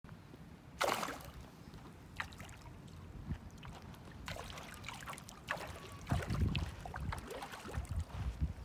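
Hooked bass splashing and thrashing at the water's surface as it is reeled toward the bank, in a few sharp splashes, the biggest about a second in. From about six seconds in, wind rumbles on the microphone.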